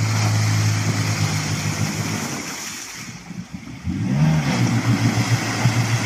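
Off-road 4x4's engine working hard under load, easing off for a moment about three seconds in, then revving up again and holding steady.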